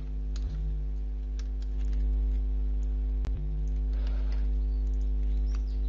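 Steady electrical mains hum on the recording, with a few scattered computer keyboard clicks as code is typed and selected.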